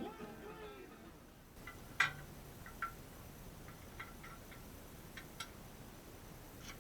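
Scattered sharp clicks and light metallic taps of hand tools and hardware being handled, the loudest about two seconds in.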